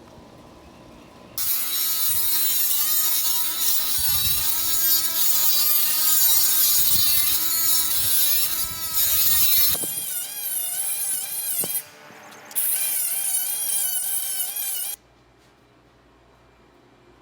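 Handheld power tool motor whining under load, its pitch wavering as it works. It starts about a second in, stops briefly, runs again for a couple of seconds, then cuts off.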